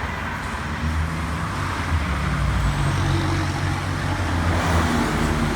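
A motor vehicle's engine running with steady road or engine noise, a low hum under a broad rush.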